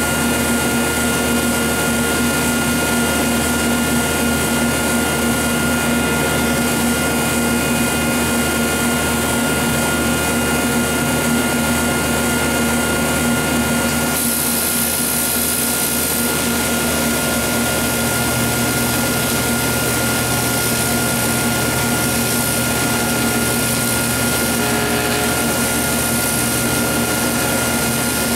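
Steady electrical hum and buzz of a TIG welding setup on aluminum, with the machine running while the arc is struck and paused. The character shifts slightly about halfway through.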